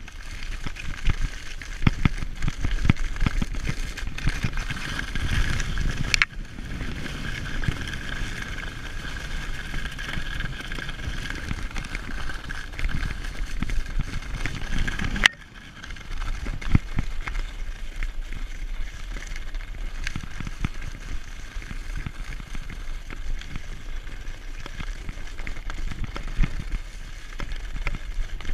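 Skis sliding and scraping over packed snow at speed on a downhill run, with wind rumbling on the action-camera microphone. There is one sharp click about halfway through, after which the noise is a little quieter and steadier.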